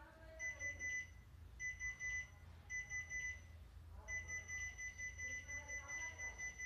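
Piezo buzzer beeping a high tone, first in three short bursts of quick beeps, then from about four seconds in a fast, unbroken run of about five beeps a second. This is an Arduino collision warning being set off by an HC-SR04 ultrasonic sensor: the rapid beeping marks an object close to the sensor.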